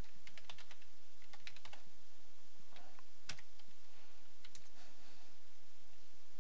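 Typing on a computer keyboard: a quick run of keystrokes over the first two seconds, then a few scattered taps, the sharpest about three seconds in.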